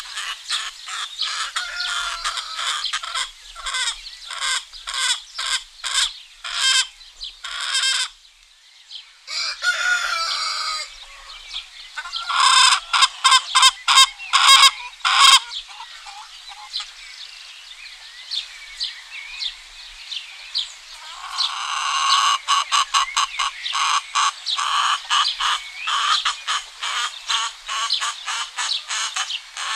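Domestic chickens clucking in quick strings of short calls, with a rooster crowing.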